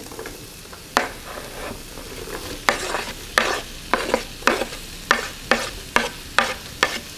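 Diced onion sizzling in hot olive oil in a pot, while a spatula scrapes the last pieces off a wooden cutting board. The scraping makes a run of sharp clicks and taps, about two a second after the first couple of seconds.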